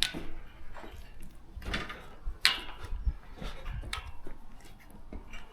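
A few irregular scrapes and knocks, the loudest about two and a half seconds in.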